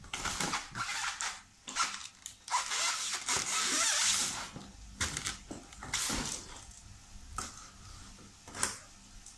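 Toy packaging being handled: cardboard and plastic scraping and rustling, with sharp clicks as cable ties holding the toys are snipped. A longer scrape about three to four seconds in as the cardboard insert is slid out of its box.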